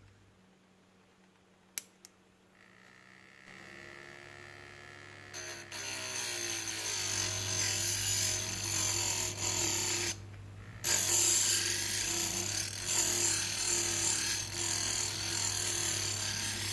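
Two clicks, then the small DVD disc motor spinning up with a faint whine, then a kitchen knife blade grinding against the sandpaper-coated spinning disc with a rough hiss, breaking off briefly about ten seconds in and starting again.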